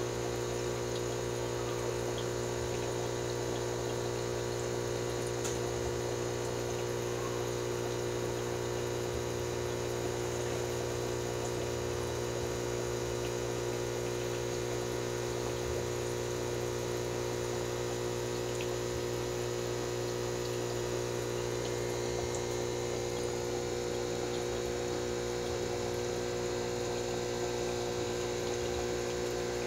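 Aquarium filter pump humming steadily, with a low wash of moving water.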